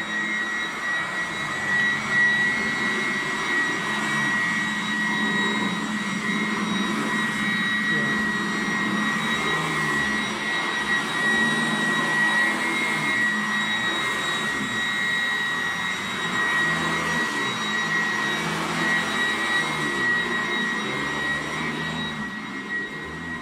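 Upright vacuum cleaner running steadily while it is pushed over carpet for pre-vacuuming: a high, even motor whine over a lower rumble that shifts with the strokes.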